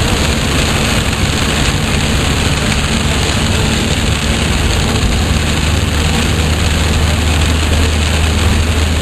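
Heavy rain drumming on a car and tyre spray hissing on a flooded highway, heard from inside the cabin, over a steady low engine and road drone.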